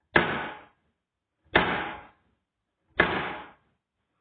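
Kitchen cupboard door shut a bit hard three times, about a second and a half apart. Each shutting is a sharp bang that rings out for about half a second.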